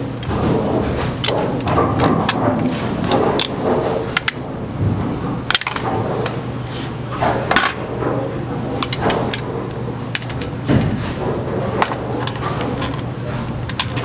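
Bowling pinsetter work: a steady low machine hum with many sharp metallic clanks and knocks of tools and parts being handled.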